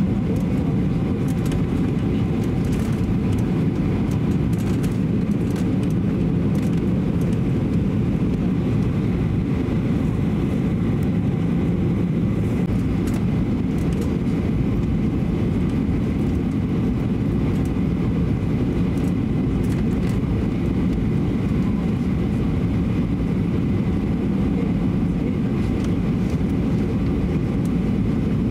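Steady cabin noise of a Boeing 737-800 airliner on final approach: an even, deep rumble of engines and airflow, without change.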